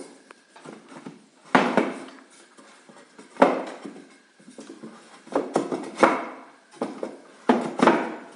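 Wooden cedar hive parts knocking and clunking together as they are handled and fitted: several hollow knocks at irregular intervals.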